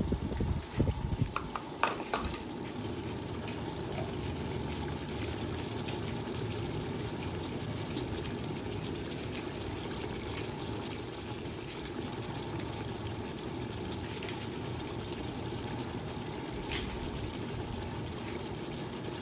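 A pot of pigeon and tomato broth bubbling steadily over the fire. A metal spoon taps a few times in the first couple of seconds as ground spice is added.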